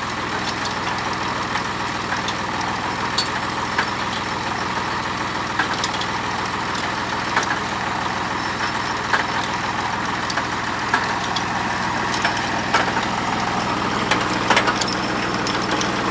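Engine powering a belt-driven, tractor-mounted drilling rig, running steadily, with scattered sharp metallic clicks about once a second.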